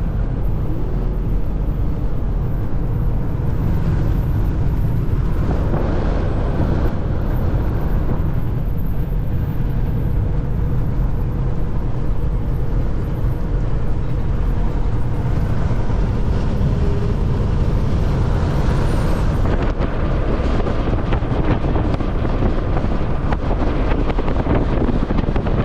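Steady engine and road noise heard from inside a vehicle's cab while it drives along the highway, a continuous low rumble.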